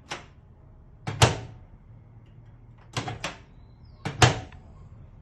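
A series of sharp knocks and clacks, about six in all, some in quick pairs, with the loudest about a second in and near the end, each trailing a brief ring.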